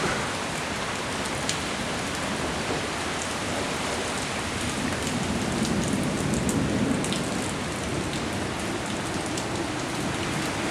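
Strong storm wind blowing with a steady rushing noise that swells for a couple of seconds about halfway through, with faint scattered ticks.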